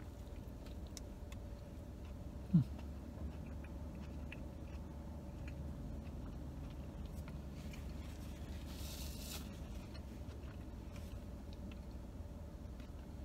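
A man chewing a mouthful of soft flour-tortilla burrito, with faint wet mouth clicks, over the steady low hum of a car interior. A short rising hum-like mouth sound comes about two and a half seconds in, and a brief rustle about nine seconds in.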